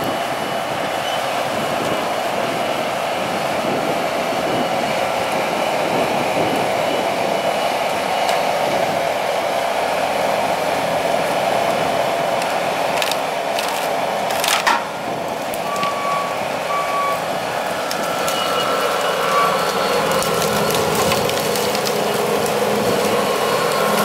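Heavy tree-clearing machinery running steadily, with wood cracking and splintering. A sharp crack comes a little past halfway, followed by a few short beeps.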